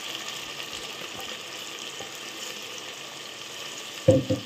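Onions, curry leaves and ginger-garlic paste frying in ghee in a steel pot, with freshly added tomato on top: a steady soft sizzle with faint crackles. A brief burst of voice near the end.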